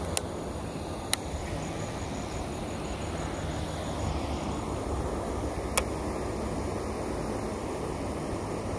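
Steady outdoor wind noise buffeting the microphone, with three sharp clicks: one just after the start, one about a second in and one near six seconds.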